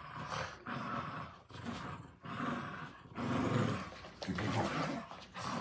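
Small dogs growling playfully while tugging on a toy, in rough bouts of about a second with short breaks between them, loudest a little past the middle.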